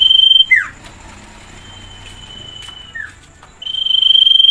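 A small songbird, the cipew, singing repeatedly: a steady high whistle held about a second, then a quick falling note. The phrase comes loudly at the start, faintly in the middle and loudly again near the end, over a faint steady high tone.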